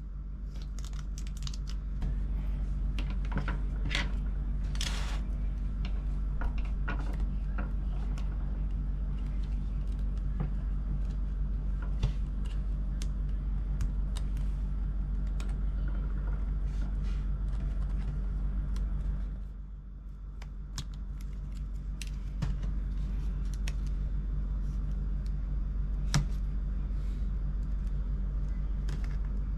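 Small, scattered clicks and metallic taps of hand tools and small parts being worked inside a MacBook Pro, over a steady low hum that drops briefly about two-thirds of the way through.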